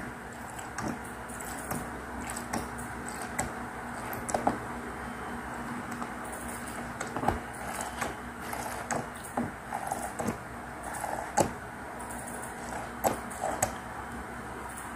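A plastic ink bottle being handled while it drains upside down into an Epson L121 printer's ink tank: scattered small plastic clicks and taps, with a few short soft rustles about halfway through, over a faint steady hum.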